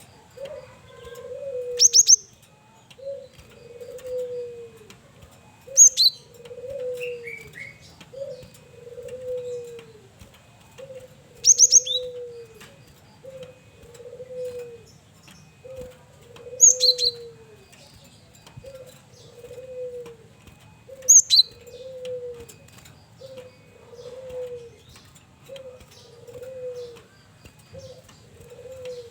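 Male cinereous tit (gelatik batu) singing: five loud bursts of two or three quick, high, sharp notes, roughly every five seconds. Under it a dove coos steadily, a short falling coo about every second and a bit.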